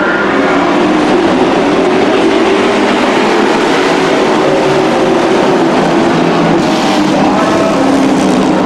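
A pack of dirt-track race trucks running at speed, their engines loud and continuous. The engine pitch wavers up and down as the trucks go through the turns and past.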